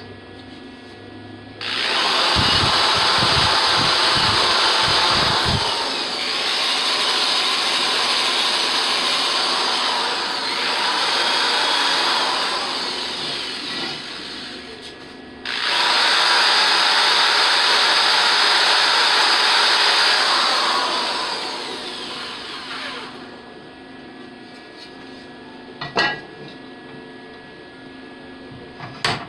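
Electric arc welding: two long runs of loud, steady hiss, the first about thirteen seconds with slight dips, the second about eight seconds, each starting and stopping abruptly. A single sharp knock follows a few seconds later.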